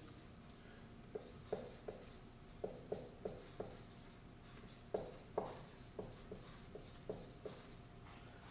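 Dry-erase marker on a whiteboard: a faint string of short, irregular squeaks and taps as words are written by hand.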